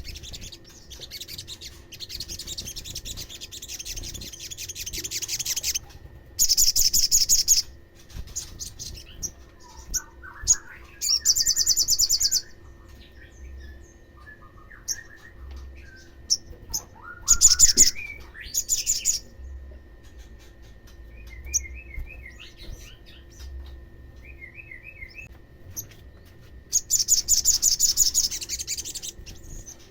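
Olive-backed sunbird singing: several bursts of very rapid, high trilling, with softer chirps and short rising notes between them.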